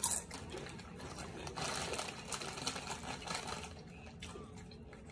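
Crinkling of a thin plastic snack bag being handled, mixed with the crisp crunching of fried chicken-intestine chicharon being eaten. There is a sharp crackle at the start and a dense run of crackles in the middle.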